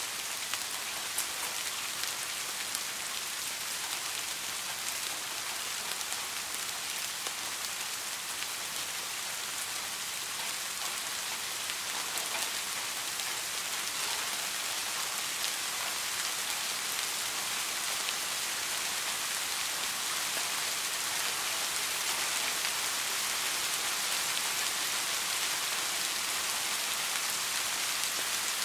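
Steady rain falling, an even hiss dotted with small, sharp drop ticks.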